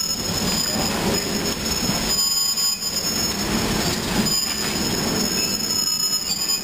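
Open-sided railroad passenger car rolling along the track: a steady rumble with a high, steady wheel squeal above it.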